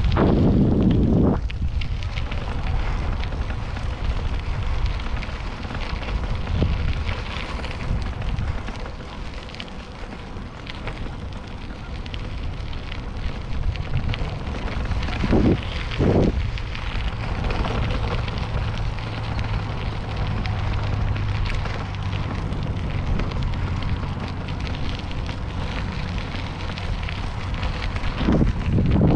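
Wind rushing over the microphone while cycling, a steady low rumble with a constant crackle. It surges louder a few times: at the start, about halfway through, and near the end.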